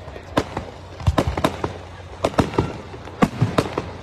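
Aerial fireworks shells bursting in the sky, in about four clusters of sharp bangs in quick succession, roughly one cluster a second.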